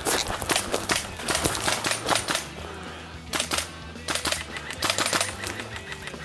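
Hurried footsteps through dry scrub, with branches and brush scraping against clothing and gear in irregular bursts of crackling and rustling.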